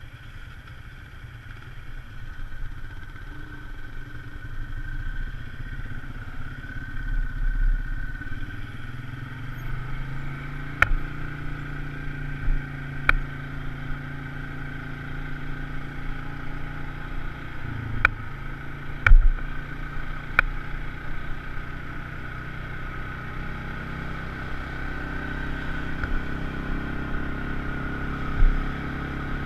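Polaris RZR side-by-side's engine running as it drives along a dirt trail, its pitch rising and falling with speed. Several sharp knocks and rattles come through, the loudest about two-thirds of the way in.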